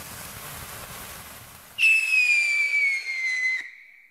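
Fireworks sound effects: a sparkler's steady fizzing hiss, then, about two seconds in, a firework whistle that falls slowly in pitch and cuts off suddenly near the end.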